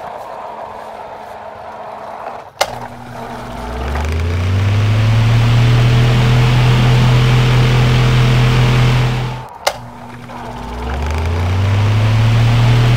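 Truck engine sound effect: the engine revs up from low and settles into a steady drone, then cuts off with a click about ten seconds in and revs up again the same way. Before the first rev there is a quieter hissing background, ended by a sharp click about two and a half seconds in.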